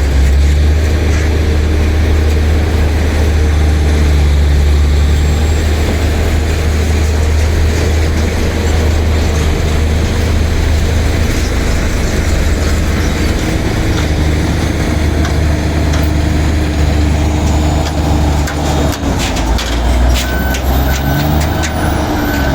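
A bulldozer's heavy diesel engine runs steadily with a deep low hum. Near the end come a few sharp metallic clicks and knocks.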